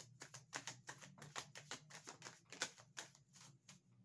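Tarot cards being shuffled by hand: a quick, irregular run of soft card clicks and flicks.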